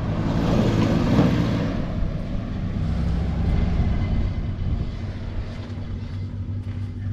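A vehicle's engine running steadily, with a rush of noise in the first two seconds that fades away.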